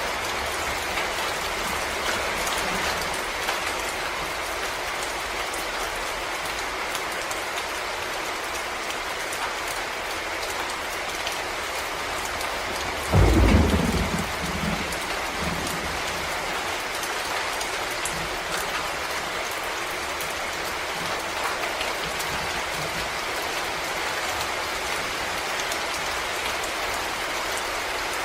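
Steady rain falling on forest leaves and the ground. About halfway through comes a brief, low rumble of thunder that starts suddenly and fades within a second or two.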